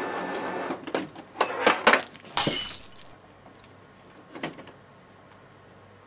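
Photocopier's steady running noise cuts off, followed by a quick string of clattering knocks that ends in a loud breaking crash, then a single click a couple of seconds later.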